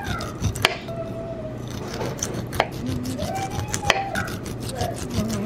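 Kitchen knife slicing kernels off an ear of corn on a wooden cutting board: repeated scraping cuts down the cob, with several sharp knocks as the blade meets the board.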